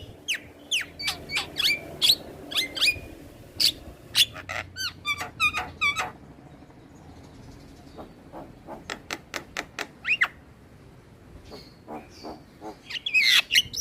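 Javan myna singing in a rapid run of sharp whistles and chattering notes. It pauses for about two seconds midway, calls again, and ends with a dense burst of notes.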